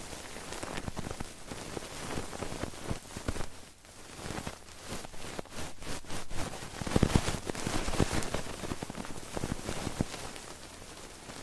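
Close-miked ASMR trigger sounds: a dense, rain-like crackling and rustling of something worked against the microphone, loudest about seven seconds in.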